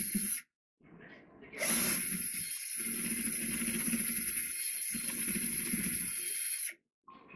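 Electric drill with a beater head running as it churns out the pumpkin's guts. It stops just after the start, starts again about a second and a half in, runs steadily for about five seconds, then cuts off suddenly.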